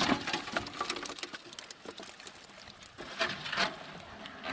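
Crucian carp sliding out of a metal basin into a metal bucket: a fast, irregular patter of wet slaps and small knocks against the metal, with louder clusters at the start and about three seconds in.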